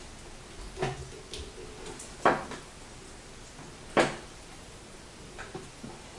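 Sausage stuffer knocking three times, about a second and a half apart, while a sheep casing is filled from its horn, with a few fainter clicks near the end.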